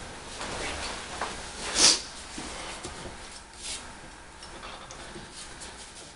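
Hands handling a steel floor jack while working its shipping pin loose: a few short scraping, rustling noises with small clicks, the loudest a sharp scrape nearly two seconds in.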